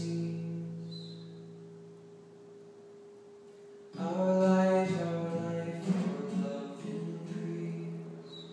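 Acoustic guitar chords ringing and slowly fading, then a fresh strummed chord with a male voice singing a line about four seconds in, with another strum about two seconds later.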